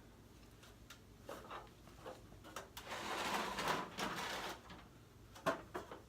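Metal parts and tools being handled while garage door torsion spring hardware is fitted: scattered clicks and knocks, with a scraping rattle lasting about a second and a half in the middle.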